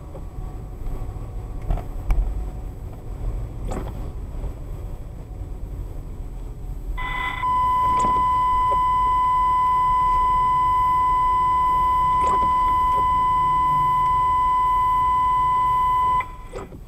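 Low car-cabin road rumble with a few faint clicks; about seven seconds in a loud, steady, high electronic beep tone starts and holds for about nine seconds before cutting off suddenly.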